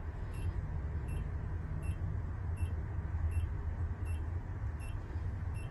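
A delivery truck's engine idling with a steady low rumble, heard from inside the cab, while a warning beep in the cab sounds about every three-quarters of a second.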